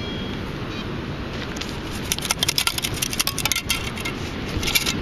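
Sand and grit rattling through a perforated metal beach sand scoop as it is shaken to sift out a dug find: a dense run of gritty rattles starting about two seconds in, then a shorter burst near the end.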